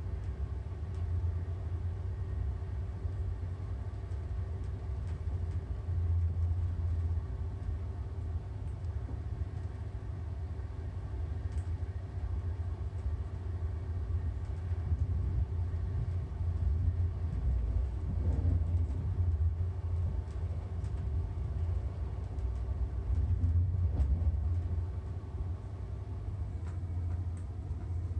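Passenger train running on the rails, heard from inside the carriage: a steady low rumble that swells and eases a little, with a faint constant hum above it.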